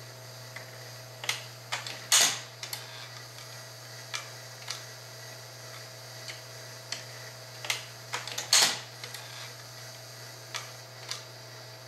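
1937 Rock-Ola World Series baseball arcade game running: a steady electric-motor hum under scattered light mechanical clicks, with two louder metallic clacks about six seconds apart as the pitching mechanism throws and the pitcher's cam ratchets to its next position.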